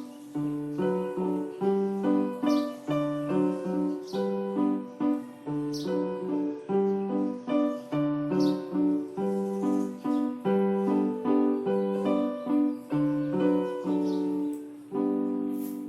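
Background keyboard music: a steady, even run of piano-like notes.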